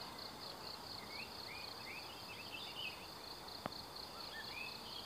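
Insects trilling steadily in a fast pulsing high band, with many short bird chirps that rise and fall, and one sharp click about three and a half seconds in.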